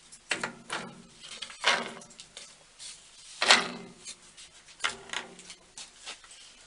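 Metal drawers of an old steel drawer cabinet being handled, giving a handful of short scrapes and knocks, the loudest about three and a half seconds in.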